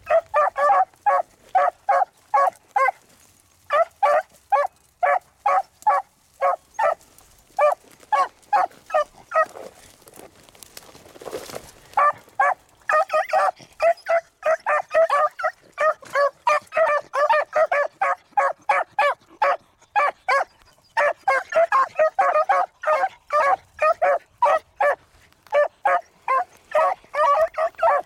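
Beagles baying on a rabbit's scent: a fast run of short, high barks, about three a second, overlapping as the pack follows the track. The barking thins out for a couple of seconds near the middle, then picks up again, steady and dense.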